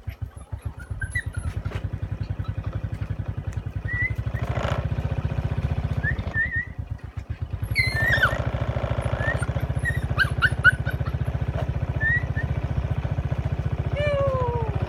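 Small motorbike engine idling steadily, with a few short high squeaks from the dogs and a falling whine near the end.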